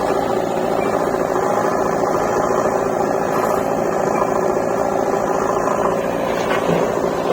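Heavy diesel earthmoving engine running steadily, as from a backhoe loader or tractor working close by.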